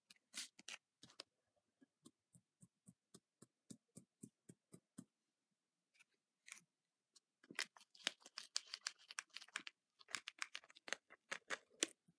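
Faint clicking and crinkling of a plastic bag of bouncy-ball crystal powder and a plastic ball mold being handled: a run of small, evenly spaced clicks, about three a second, then denser crinkling over the last few seconds.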